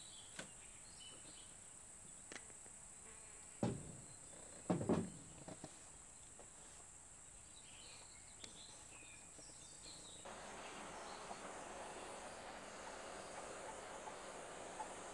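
A steady high-pitched insect hum, broken by a few sharp knocks about four and five seconds in. From about ten seconds in a steady hiss takes over: a handheld gas torch burning as it scorches the edge of the pine tabletop.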